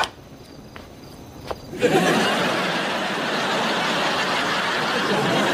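Sitcom studio audience laughing, breaking out suddenly about two seconds in and carrying on steadily at a loud level.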